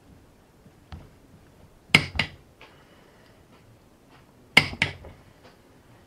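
Click-type torque wrench on a crankshaft pulley bolt, giving two sharp double clicks about two seconds in and again about four and a half seconds in: the wrench releasing as the bolt reaches the set 100 Nm.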